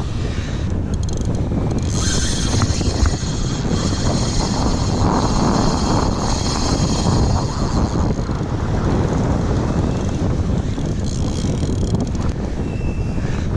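Wind buffeting the microphone with a low, steady rumble, over the wash of surf. A higher hiss joins from about two seconds in until about nine seconds in.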